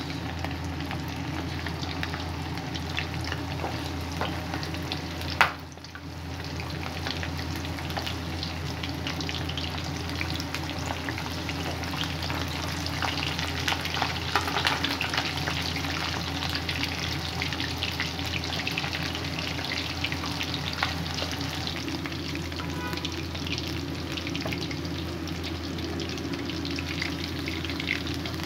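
Chicken drumsticks deep-frying in hot oil in a wok: a steady crackling sizzle of bubbling oil, with one sharp click about five seconds in.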